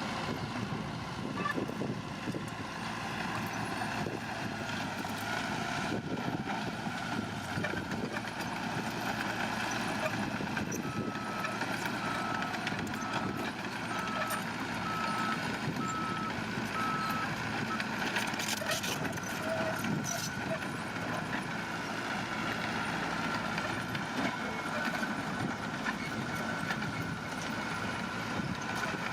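Heavy construction machinery, bulldozer and dump truck, running steadily, with a reversing alarm beeping about once a second for some six seconds midway.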